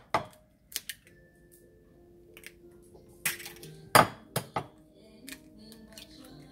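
Eggs cracked one after another on the rim of a ceramic bowl: sharp taps and shell cracks, a couple about a second in and a louder group of several from about three to four and a half seconds in. Faint music runs underneath from about a second in.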